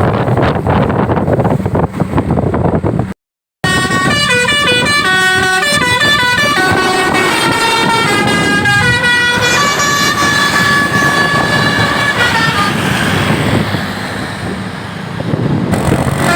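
A bus's basuri musical horn playing a melody of short stepped notes for about eight seconds, over traffic and engine noise. Before it, about three seconds of wind and road noise end in a sudden cut to silence.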